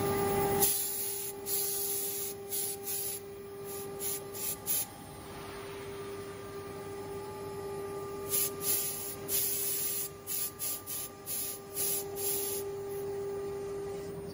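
Woodworking CNC router spindle running with a steady high whine while routing MDF. A louder stretch of cutting noise stops about half a second in, followed by irregular short hissing bursts in two clusters.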